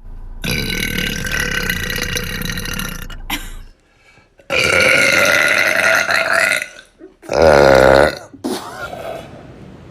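A series of long, loud burps: one of about three seconds, a second of about two seconds after a short pause, then a shorter one with a pitch that dips and rises, and a brief fainter one near the end.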